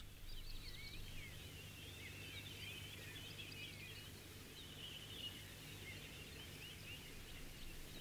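Faint chorus of small birds chirping and singing, many short overlapping calls, over a low steady hum.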